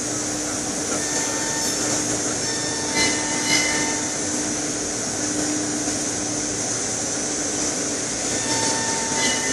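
CNC machine cutting a stair post held turning in a lathe: a steady hissing machine noise with a constant hum, growing briefly louder a couple of times about three seconds in.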